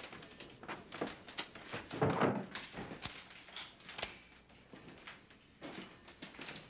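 A door being shut, with a thud about two seconds in, among lighter knocks and a sharp click.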